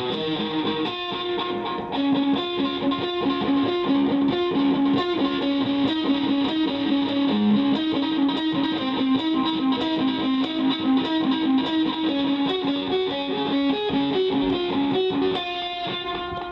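Distorted electric guitar played through a hand-built delay pedal modded for a darker delay: a fast run of picked notes with their echoes repeating and overlapping. The playing stops about a second before the end, leaving one note ringing out.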